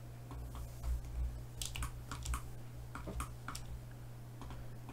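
Scattered, irregular clicks of a computer keyboard and mouse, about a dozen, over a steady low electrical hum.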